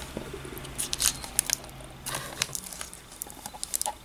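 Clear protective plastic film on an external hard drive crinkling as the drive is handled and turned, with scattered crackles and light clicks.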